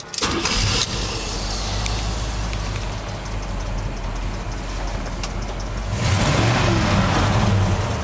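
Cadillac 500 cu in V8 in a Chevrolet pickup firing up with a sudden burst, then settling into a steady low idle. It gets louder near the end, as if revved.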